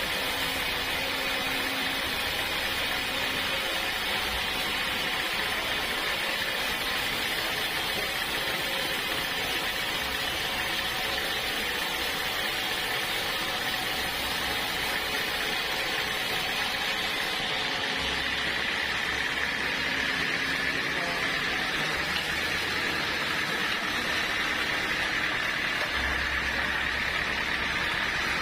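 Sawmill saw running steadily through a log of hard acacia wood: an even, unbroken hiss and whine. The tone shifts slightly a little past halfway.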